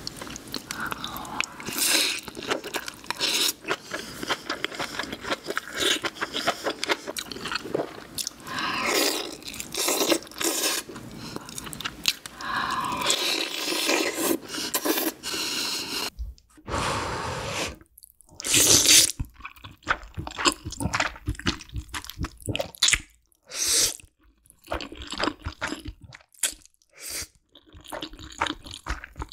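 Close-miked eating sounds: chewing, smacking and crunching of meat, soup and rice. About sixteen seconds in, a sharper run of wet chewing takes over as a mouthful of noodles in dark sauce is eaten.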